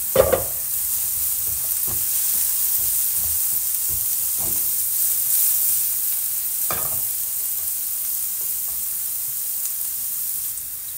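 Diced courgette sizzling steadily in olive oil and butter in a nonstick frying pan, stirred with a spatula that knocks and scrapes against the pan a few times, most sharply just after the start.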